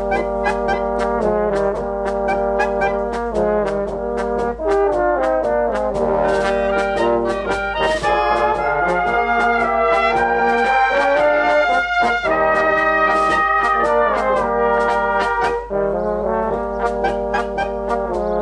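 Brass music: trumpets and trombones playing a melody over a steady beat.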